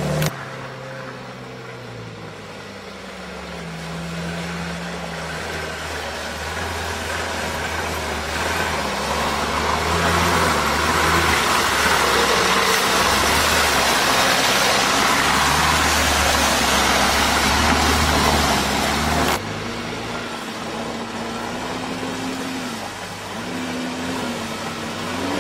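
Off-road vehicle engine running as it drives, with engine and rolling noise building up over the first several seconds. About two-thirds of the way through the sound cuts abruptly to a quieter engine whose pitch wavers up and down.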